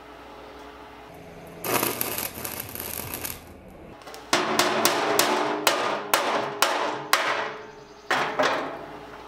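Wire-feed (MIG) welder arc crackling as tacks are laid on rough, pitted steel from an old fuel oil tank, in three bursts: one of about two seconds, a longer one of about four seconds with sharp pops every half second or so, and a short one near the end. The pitted, rough edges weld badly.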